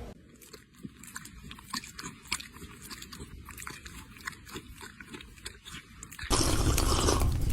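A cat chewing and crunching, a quick run of many small crisp clicks. About six seconds in, a louder, steady noise takes over.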